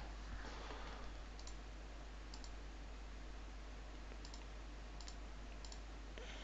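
Faint computer mouse clicks, about five spread through, each a quick press-and-release tick, over a steady low hum and hiss.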